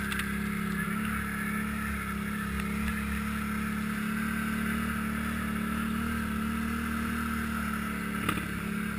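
ATV engine running at a steady speed under way, heard from the machine itself as an even drone, with a single brief knock about eight seconds in.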